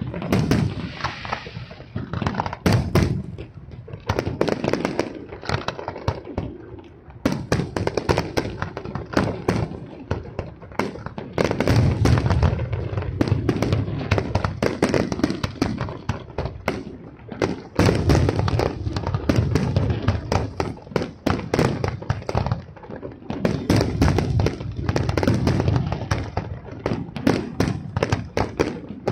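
Aerial fireworks display: shells bursting in dense volleys of bangs in quick succession, easing off briefly a few times before the next barrage.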